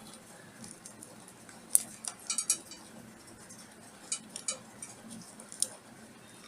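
Multimeter probe tips clicking and tapping against the LEDs on an LED bulb's circuit board as each LED is checked on continuity: a sharp click just under two seconds in, a quick cluster of clicks, another cluster past four seconds and a last click near the end.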